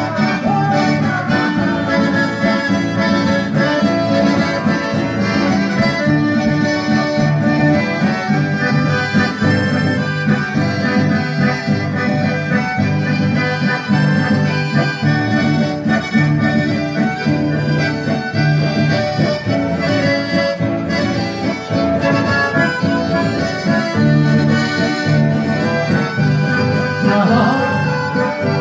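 Live dance music from a band led by two accordions, with acoustic guitar accompaniment, playing at a steady beat without a break.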